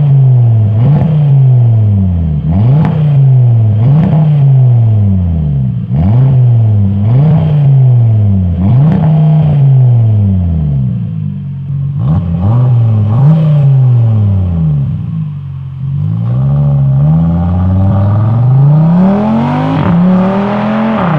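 Audi RS3 8Y's five-cylinder engine being revved over and over through a Provocateur exhaust with the flaps open, each blip climbing quickly and falling away slowly, about one a second. In the last few seconds a longer, steady climb in pitch as the car accelerates away.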